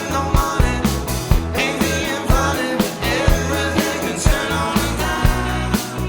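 Live rock band playing a song: a drum kit keeps a steady beat under bass guitar, electric guitars and keyboard.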